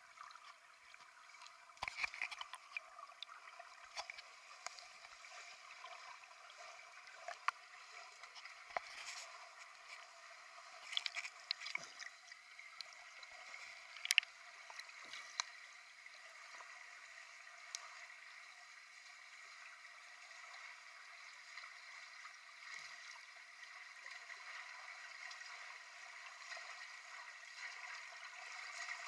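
Muffled underwater noise in a swimming pool, picked up by a camera under water: a faint steady hiss with scattered clicks and bubbling crackles from the water and the swimmer's strokes.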